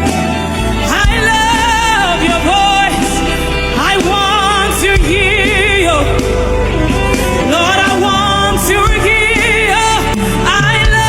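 Live gospel worship music: a singer holding long, wavering notes with vibrato over a continuous band accompaniment.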